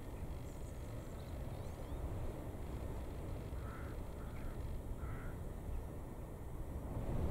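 Wind buffeting the microphone as a steady low rumble, with three short, faint bird calls about halfway through.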